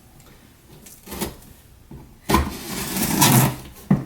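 Cardboard and packing material rustling and scraping as a shipping box is unpacked: a short rustle about a second in, then a louder burst of handling for about a second and a half after the halfway point.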